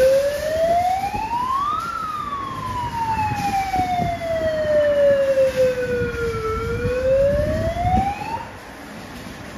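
Emergency vehicle siren wailing: one tone rises for about two seconds, falls slowly for about four and a half, then rises again and cuts off shortly before the end, over the rumble of traffic.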